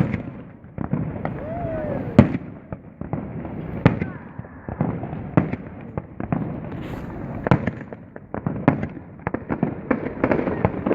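Fireworks display: shells bursting in sharp, irregular bangs, some coming in quick clusters, over a steady rumble.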